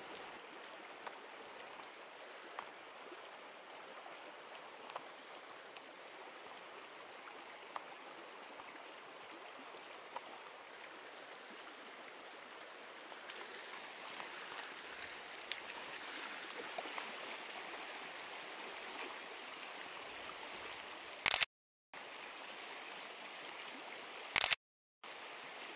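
Shallow creek running over a gravel riffle: a steady rush of water that grows a little louder about halfway through. Near the end come two sharp clicks about three seconds apart, each followed by a brief cut to silence.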